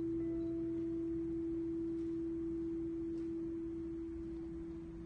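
Clarinet holding one long, soft final note, an almost pure tone that fades away near the end.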